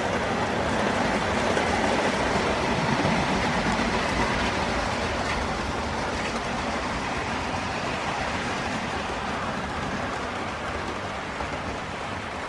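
Model trains running on a model railway layout: a steady rolling rush of wheels on track and motor hum, loudest a few seconds in and slowly fading as the trains run away round the curve.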